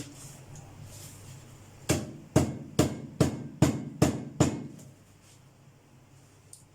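Seven sharp knocks in quick succession, about two and a half a second, as a piece of dried paan (betel) root is struck to break it into a smaller piece.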